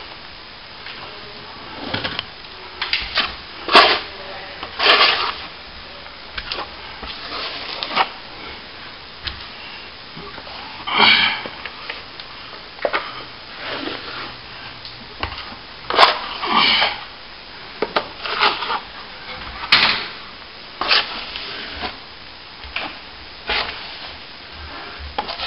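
Metal plastering blade scraping and rubbing along a crack in a plaster ceiling in short, irregular strokes, with a few sharp clicks of the blade against the surface.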